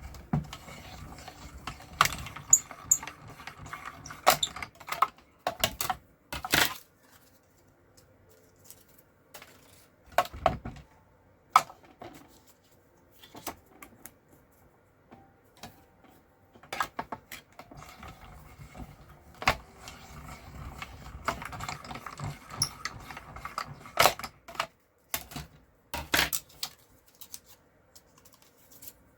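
Paper-crafting handling sounds: cardstock and small tools being picked up, shuffled and set down, with irregular sharp taps and clicks amid soft rustling. There is a quieter lull in the middle.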